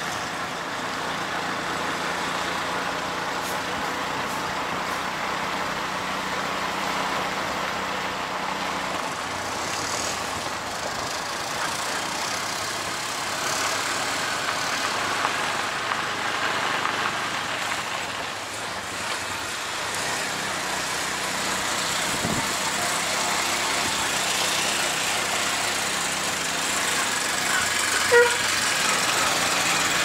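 Auto-rickshaw (tuk-tuk) engine running steadily as it drives along a road, heard from inside the open cabin with road and wind noise. A brief horn toot sounds near the end.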